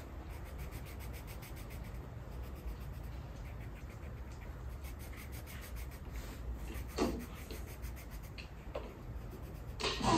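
Wooden coloured pencil shading on colouring-book paper in quick back-and-forth strokes, a soft steady scratching. A single soft knock about seven seconds in.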